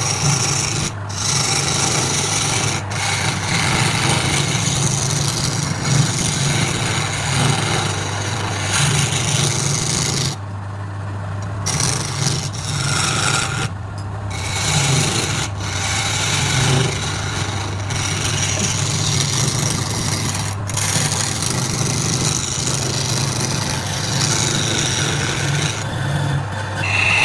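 Wood lathe running with a steady hum while a turning tool scrapes and cuts the spinning workpiece, a continuous rough rasping; the cutting stops briefly twice, about ten and fourteen seconds in, as the tool comes off the work.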